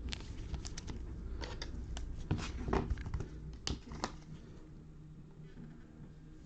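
Trading cards and their packaging handled on a table: a run of light clicks, taps and rustles over the first four seconds, then quieter.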